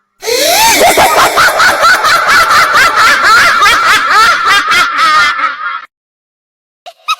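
A high-pitched snickering laugh used as a meme sound effect: loud, fast and rhythmic, running about five and a half seconds before it cuts off abruptly.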